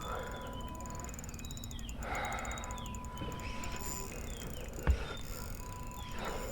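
Faint bird calls, short falling chirps repeated, over a low background hum with a faint steady tone that starts and stops. A single sharp knock sounds about five seconds in.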